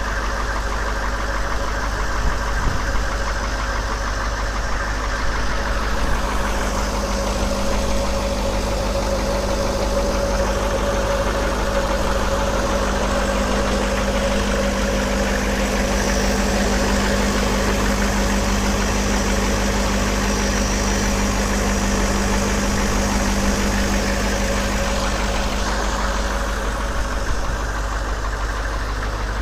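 AM General 6.5-litre V8 diesel of a 1995 M998 Humvee idling steadily.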